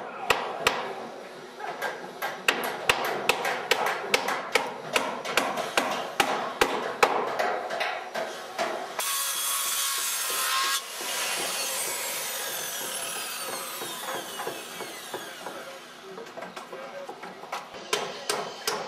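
Hammers driving nails into wooden house framing, with irregular blows. About nine seconds in, a handheld circular saw cuts through a board for under two seconds, then its blade winds down with a slowly falling whine. Hammering resumes near the end.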